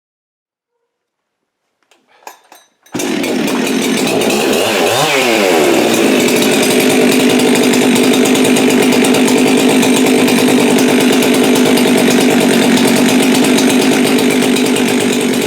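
Freshly built Jonsered CS2165 two-stroke chainsaw with a Husqvarna 372XPW 51.4 mm cylinder starting: a few short faint sounds, then it fires about three seconds in and runs on steadily and loudly.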